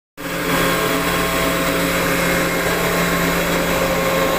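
Running industrial air compressor: a steady mechanical drone with a constant hum and hiss that does not change.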